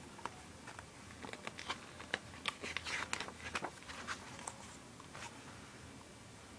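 A paper page of a picture book being turned by hand: faint rustling with soft, scattered crinkly clicks, densest in the middle.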